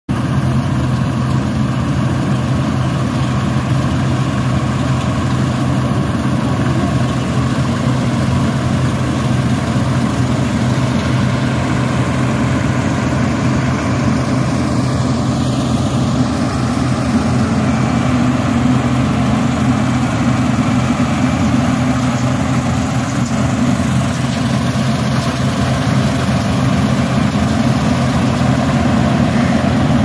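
New Holland combine harvester running steadily while harvesting rice, a constant engine sound that stays the same throughout.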